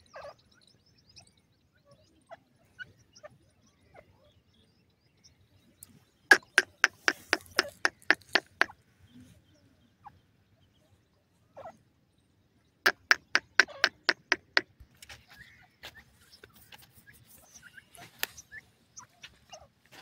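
Grey francolin calling: two fast runs of loud, clipped, repeated notes at about five a second, each run lasting about two seconds. The first run starts some six seconds in and the second about thirteen seconds in.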